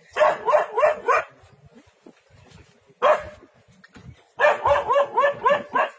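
A dog barking in two quick runs of about five barks a second, with a single bark between them: alarm barking at a leopard close by.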